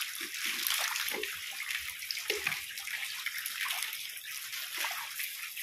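Steady splashing and trickling of shallow water in a drained concrete fish pond, stirred by the crowded fish and by bare feet wading through it.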